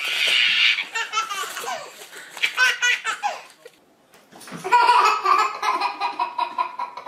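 A baby laughing hysterically in bouts of belly laughter, the longest a run of rhythmic 'ha-ha' pulses starting about five seconds in.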